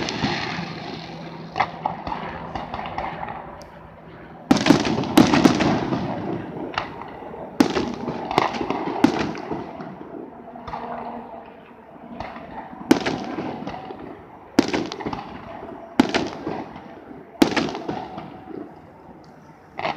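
Aerial firework shells bursting in a public display: about eight loud bangs a few seconds apart, each trailing off in a rumbling echo, the biggest about four and a half seconds in.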